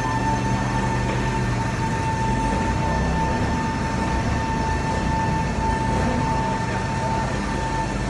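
Steady machine running noise with a constant high-pitched whine over a low rumble.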